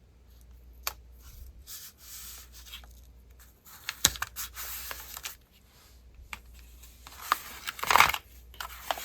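Paper and card being handled and folded: irregular rustling and sliding with a few sharp taps, and a louder rustle near the end.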